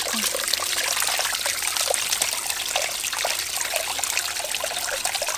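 Water gushing steadily from a pipe outlet and splashing into a metal pot of rice as the rice is rinsed.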